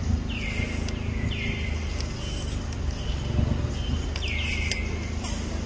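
A bird calling over and over in short high notes that each drop in pitch, roughly one a second, over a steady low rumble and a few faint clicks.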